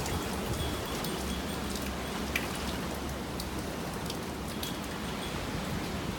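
Typhoon rain and wind: a steady rushing noise with scattered drops ticking, and wind rumbling low on the microphone.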